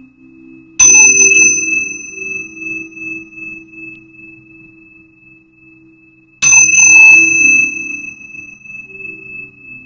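Tingsha cymbals struck together twice, about five and a half seconds apart. Each strike rings out in a high, bright tone that slowly fades. A low, steady tone sounds underneath.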